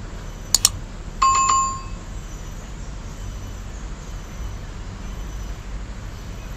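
Two quick clicks, then a single short bell-like ring that fades within about half a second, over steady low background noise.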